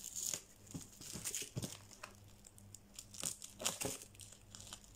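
Thin plastic mailer bag and bubble wrap crinkling as the package is handled and snipped open with scissors: a run of short, irregular crackles and snips.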